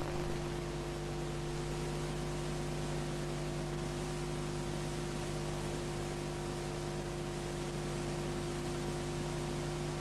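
Steady electrical hum with an even hiss over it, the background noise of an old analogue videotape recording.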